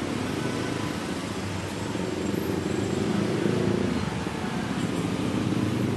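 Steady rumble of road traffic, vehicle engines running close by and swelling a little about halfway through.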